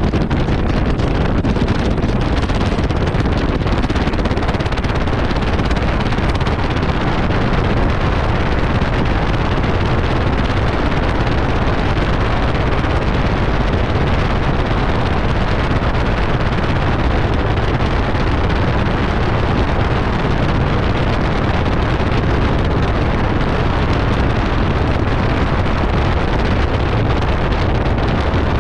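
Beechcraft Bonanza B35's air-cooled flat-six engine and propeller running steadily, close up from the engine cowling, with wind buffeting the microphone.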